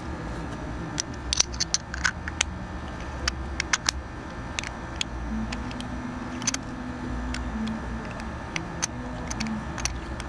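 Scattered small clicks and taps of metal on metal as the steel case back is handled and pressed back onto a wristwatch case, thickest in the first few seconds, over a steady low hum.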